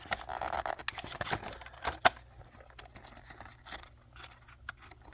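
Plastic lure packaging being handled and opened to free a topwater popper: a crinkling rustle and sharp clicks in the first two seconds, then a few light taps.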